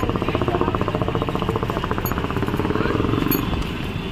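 A motor vehicle's engine running close by with a rapid, even pulsing beat. It eases off about three and a half seconds in.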